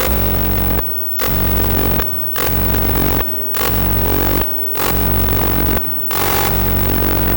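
Electronic music from a hardware synthesizer setup: a dense, noisy texture over a steady low drone, dropping out briefly in a regular rhythm about every 1.2 seconds.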